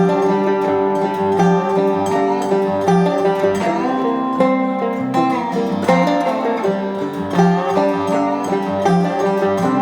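Background music: an upbeat instrumental with plucked strings like banjo and guitar and a steady beat.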